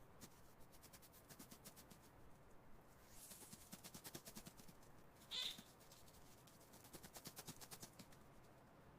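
Faint, rapid runs of tiny clicks from a mouse scurrying, with one brief high-pitched squeak about five and a half seconds in.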